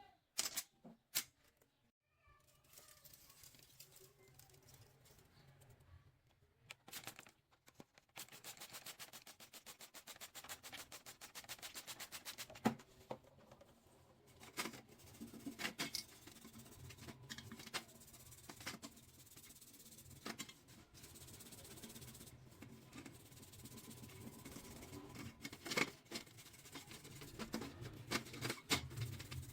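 Small hand-tool work on a metal toy model: a quick run of rapid scraping or rasping strokes, with scattered sharp clicks and taps, over faint background music.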